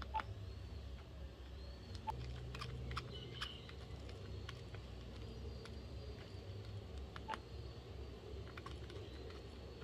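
Faint, irregular clicks of a BlackBerry 8820's buttons being pressed, with a steady low hum underneath.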